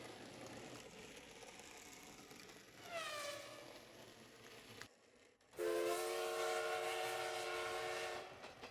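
Steam-locomotive whistle blown steadily for about two and a half seconds in the second half, several tones sounding at once as a chord. It is preceded about three seconds in by a shorter whistle-like tone that falls in pitch, over a faint steady running noise.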